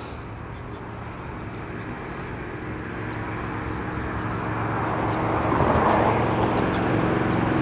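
Distant engine noise of a passing vehicle: a steady hum that grows gradually louder.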